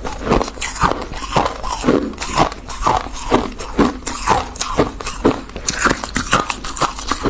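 Close-miked chewing and biting of crunchy refrozen freezer frost, a steady run of crisp crunches about two a second.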